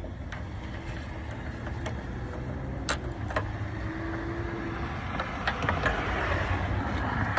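Sharp clicks of a new turn-signal bulb and its plastic socket being handled and fitted into the lamp housing, two about three seconds in and a quick cluster near six seconds, over a steady low rumble.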